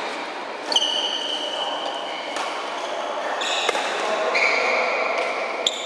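Badminton rackets smacking shuttlecocks in a large indoor hall: three sharp hits, each followed by high steady squeaks, over a background of hall noise and faint voices.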